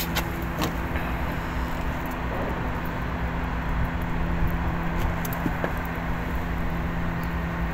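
Steady mechanical hum of a running engine or motor, a constant low drone over even noise, with a few faint light clicks.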